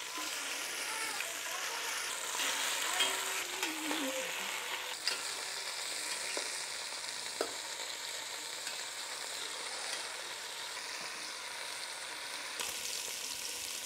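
Chicken pieces sizzling steadily as they sear in hot beef tallow in a stainless steel stockpot, with a few clicks of metal tongs against the pot as pieces are added and turned.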